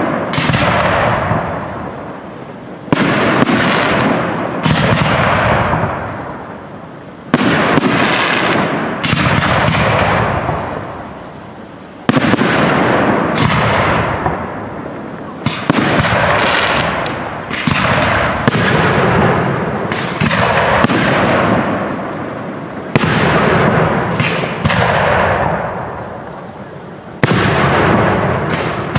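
Aerial firework shells bursting in a professional display: a loud bang every one to three seconds, some in quick pairs, each trailing off in a long rolling echo.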